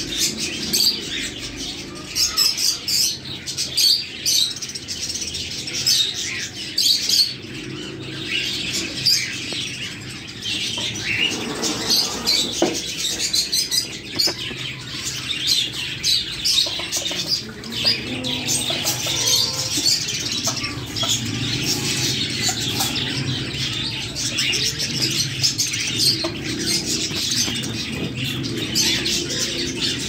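A chorus of many caged birds chirping without pause, with wings flapping now and then against the cages.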